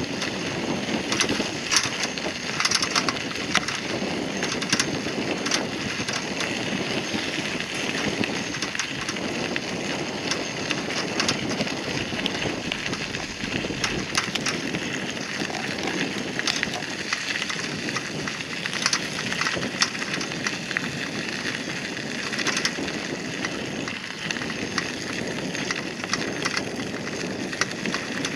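Bicycle tyres rolling over a gravel and sand path: a steady crunching hiss full of small crackles and ticks from the grit under the wheels.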